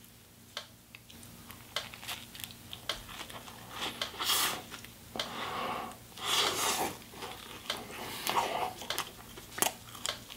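Toasted sandwich being torn apart by hand in plastic disposable gloves: the crisp crust crackles and the bread tears, with glove rustle and scattered small crackles, and three longer tearing stretches about four, six and eight seconds in.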